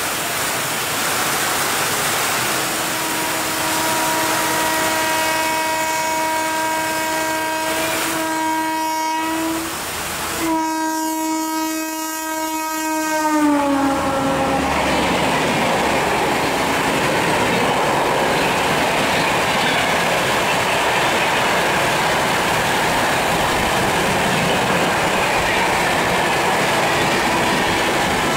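Electric locomotive's horn sounding through heavy rain: one long blast, a short break, then a second blast whose pitch drops as the locomotive passes. Then the Sealdah Duronto Express's LHB coaches rush past at speed with a steady rumble and wheel clatter, over the constant hiss of the downpour.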